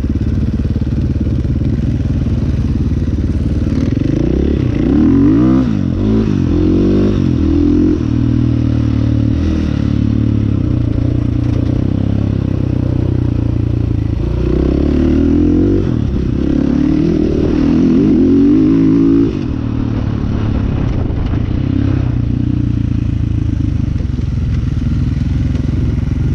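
Enduro dirt bike engine heard from on board the moving bike, running steadily with the revs rising and falling repeatedly as the throttle is worked on a rough dirt track, strongest in two stretches of revving.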